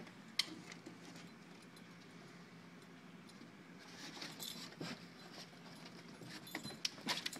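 Light crunching steps and scratching in fresh snow: one sharp click about half a second in, then small crackles that grow busier from about four seconds and are densest near the end, over a faint steady low hum.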